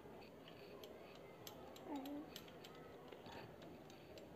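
Near silence: faint room tone with scattered, very faint high clicks and one brief faint low sound about two seconds in.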